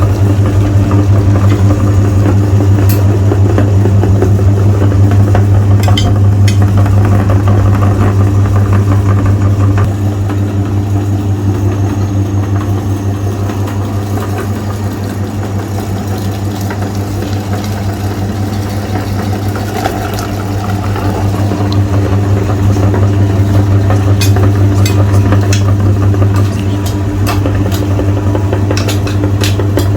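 Electric meat grinder running with a steady, loud low hum while ice cream bars are fed through it. Scattered sharp cracks and knocks come through, a few early and many near the end.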